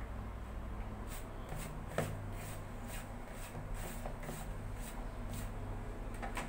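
A hand rubbing and mixing dry flour with a little oil in a plastic bowl: a steady run of soft scratchy strokes, two or three a second, with one sharper knock about two seconds in.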